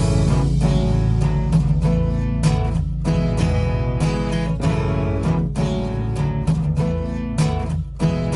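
Background music: strummed acoustic guitar over a steady low bass, in an even rhythm.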